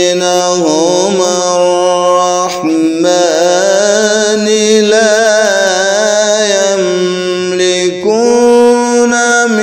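A man reciting the Quran in a slow melodic style, drawing out long wavering notes, with short breaks about two and a half seconds and eight seconds in.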